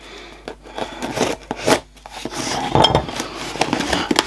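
A cardboard box being cut and opened with a large knife: irregular scraping and tearing as the blade runs through packing tape, cardboard flaps rustling and being pulled open, and a few sharp metallic clinks and knocks, the loudest nearly three seconds in.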